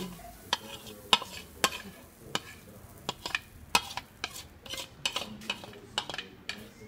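Metal spoon scraping and clinking against a mixing bowl in irregular clicks about every half second as pancake batter is poured into a hot frying pan, with a faint sizzle of batter in the pan beneath.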